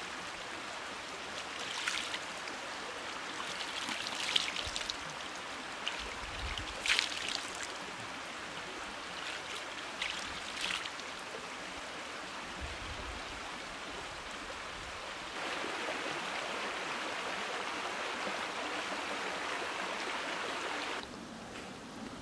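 Shallow creek running steadily, with a few short splashes as hands dip into the water and scoop it up. The water sound drops off abruptly near the end.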